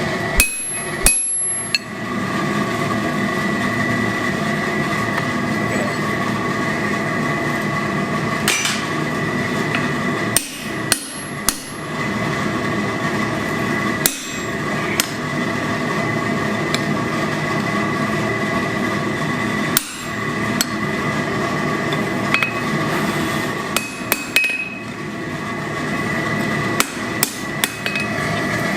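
A blacksmith's hammer striking steel on an anvil now and then, a dozen or so scattered blows, some ringing briefly, over a steady mechanical hum.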